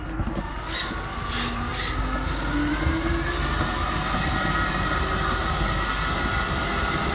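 Tamiya Knight Hauler 1/14 RC semi truck driving with its trailer, heard from on board: a steady whine from the motor and gears over a rolling rumble. Three short hisses come about one to two seconds in.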